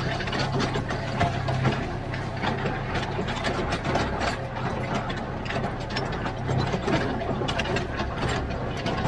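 Heavy earthmoving machine at work: a diesel engine running under dense, irregular metallic clattering and rattling.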